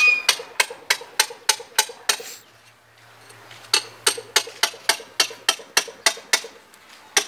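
Hammer blows in quick succession, about three a second, from someone working inside a concrete manhole chamber. The blows come in two runs separated by a pause of about a second and a half, with a single strike near the end.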